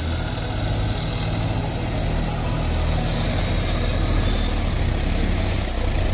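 Steady, low rumble of a heavy vehicle engine idling.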